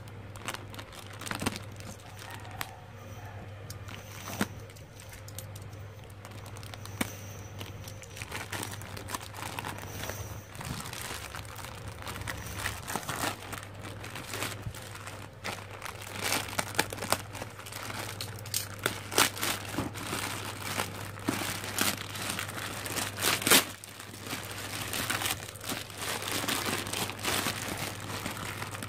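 Black plastic bag wrapping being handled, crinkled and torn open by hand, with many irregular sharp crackles that get busier and louder in the second half. A steady low hum runs underneath.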